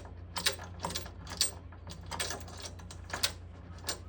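Small metal parts clicking and tapping as a bolt is fitted through a radiator bracket and rubber bushing and threaded in by hand: scattered sharp clicks, roughly two a second.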